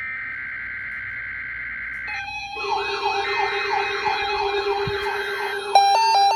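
NOAA Weather Radio EAS alert starting: about two seconds of the screeching digital SAME header burst, then weather-radio alert alarms. These are several steady tones and a rapidly repeating rising warble, with on-off beeping joining near the end.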